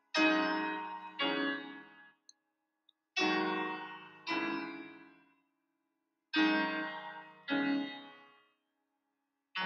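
Slow solo piano music: chords struck in pairs about a second apart, each left to ring and fade, with short pauses between the pairs.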